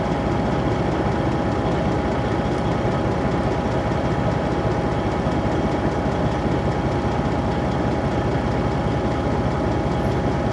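Steady engine noise that neither rises nor falls, with a constant whine over a fast, even low pulsing.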